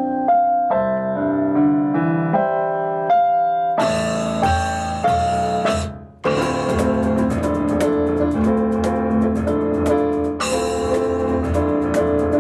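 Instrumental duo of piano and percussion playing. It opens with a bare piano phrase of single notes. About four seconds in, the percussion comes in with a fast, driving rhythm. The sound drops away briefly around six seconds in, then the full band comes straight back in.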